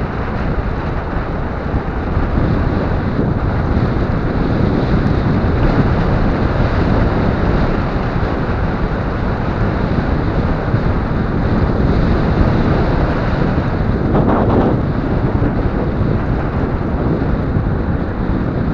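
Steady wind buffeting on an action camera microphone riding low on a moving electric skateboard, mixed with the rumble and hiss of the board's large pneumatic off-road tyres rolling over wet asphalt. There is a brief louder swish about fourteen seconds in.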